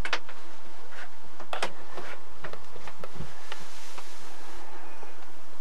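Scattered light clicks and knocks, about a dozen at irregular intervals, over a quiet small-room background.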